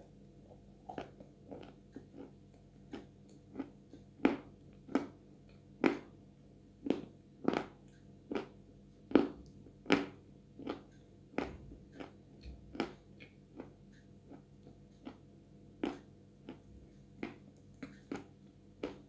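Close-up wet mouth sounds of chewing a sticky mouthful of Chuy clay paste: irregular lip and tongue smacks and clicks, about one or two a second, as the paste clings in the mouth.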